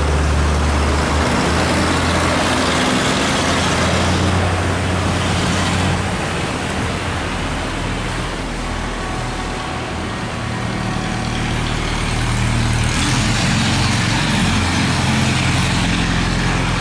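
Boat engines running close by: a steady low drone over the rush of churned water. It eases slightly midway, then swells again.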